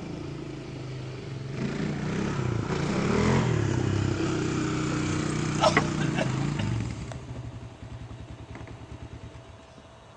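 ATV engine running, revving up and back down about three seconds in, then running steadily before fading away after about seven seconds. A short clatter sounds just before six seconds.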